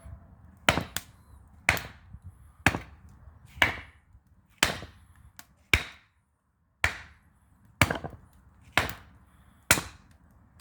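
Axe chopping firewood: about ten sharp strikes, roughly one a second.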